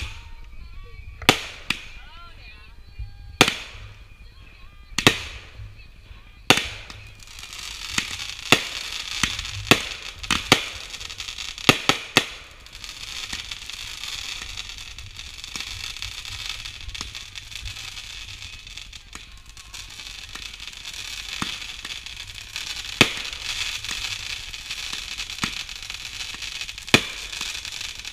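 Consumer aerial fireworks going off: sharp bangs every second or two, then a quick run of them. After that comes a long stretch of continuous crackling hiss, broken by a few more bangs near the end.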